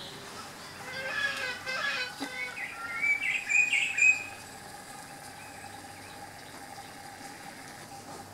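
Birds calling: a run of chirps about a second in, then louder short whistled notes around three to four seconds in, over a faint steady hum.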